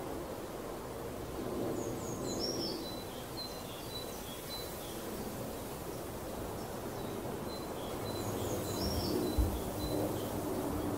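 A songbird singing two short, similar phrases of high chirps and trills, one about two seconds in and another about eight seconds in, over steady low outdoor background noise.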